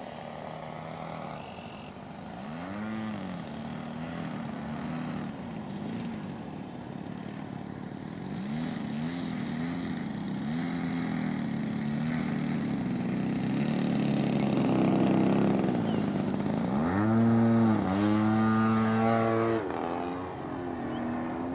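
30cc two-stroke gas engine of an EG Aircraft MX2 RC aerobatic plane, its pitch rising and falling in short surges as the throttle is worked in a low hover near the grass. Near the end it is opened up for a long, loud full-throttle burst, then pulled back.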